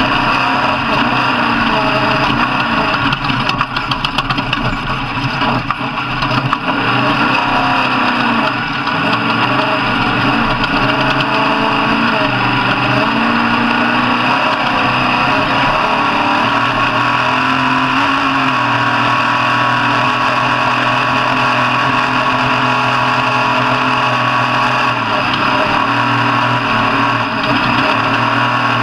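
Racing engines running continuously, several engine notes rising and falling in pitch as they rev and ease off.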